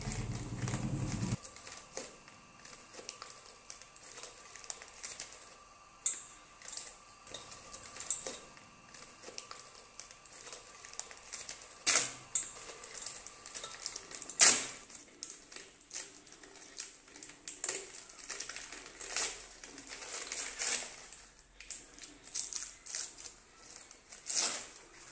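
Scissors snipping and glossy gift-wrapping paper crinkling and rustling as a wrapped gift is cut open, with irregular sharp clicks; the loudest two come about halfway through. A low hum stops just over a second in.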